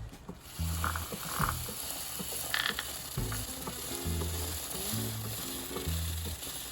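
Toothbrush scrubbing a WD-40-wet motorcycle drive chain: a steady scratchy hiss of bristles on the metal links. Background music with held bass notes plays underneath.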